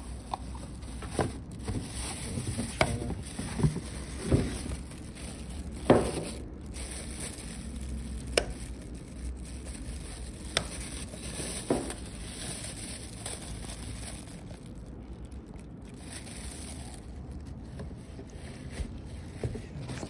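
Plastic wrapping crinkling and rustling as ceiling-fan parts are handled in a cardboard box, with a scattering of sharp knocks and taps, the loudest about six seconds in.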